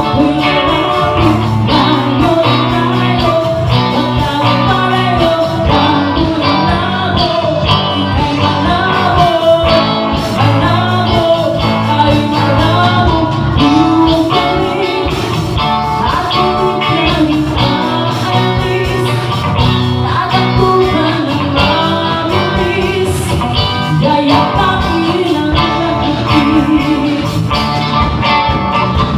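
A band playing a song: guitars with a singer's voice over the top.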